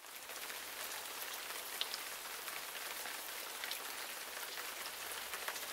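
Rain sound effect: a steady hiss of falling rain with scattered sharp drop ticks, starting suddenly at the outset.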